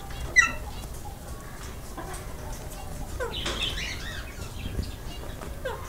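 Ringneck parakeets giving short, sharp chirping calls in a nest box: a loud one about half a second in, more around three and a half seconds, and another near the end.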